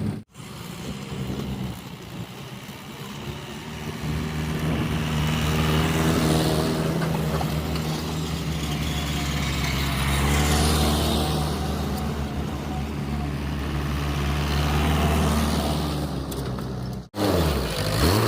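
Backhoe loader's diesel engine running under working load, with a low steady note that swells and eases. It is quieter for the first few seconds, then louder from about four seconds in. The sound cuts off abruptly twice, just after the start and about a second before the end.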